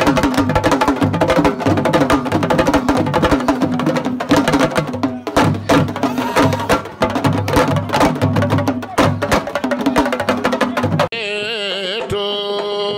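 Fast, dense sabar drumming. It cuts off suddenly about eleven seconds in and gives way to an electronic outro jingle of held tones with a wavering glide.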